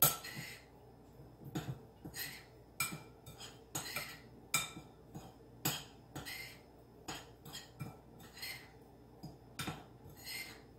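A utensil stirring a dry breadcrumb, grated cheese and garlic powder mixture in a bowl, clinking and scraping against the bowl in irregular taps about once or twice a second.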